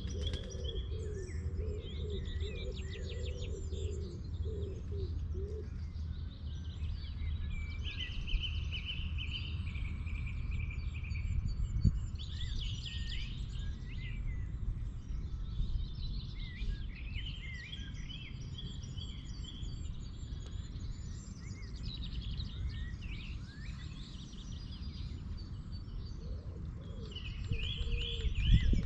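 Several songbirds singing, with overlapping chirps and rapid trills throughout, over a steady low rumble. There is a brief knock about midway and another just before the end.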